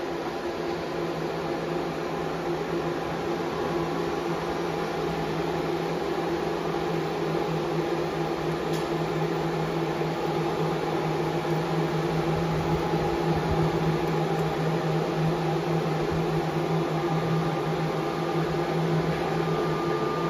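Many grid-tie solar inverters running together on test benches: a steady electrical hum made of several held tones over an even cooling-fan whir, growing a little louder partway through.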